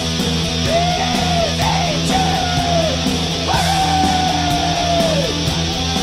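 Black metal music: a wall of distorted electric guitar over a steady low bass, with a lead line of long held notes, each bending downward as it ends, and a regular beat of cymbal strokes.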